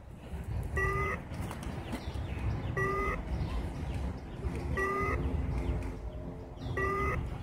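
Nerf Lazer Tag blaster giving a short electronic beep about every two seconds, four times, over a low rumble. The beeping marks the blaster's neutralized state after being hit, a respawn countdown.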